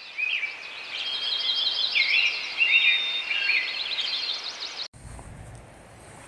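Birds singing and chirping, many quick overlapping calls and trills, cut off abruptly about five seconds in, followed by a faint low outdoor rumble like wind.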